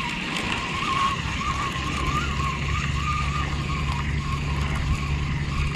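A low, steady engine hum comes in about two seconds in, under a thin wavering whine that runs throughout.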